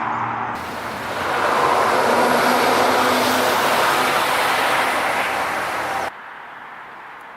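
A loud, steady rush of a moving vehicle, with a faint hum under it, cutting off abruptly about six seconds in.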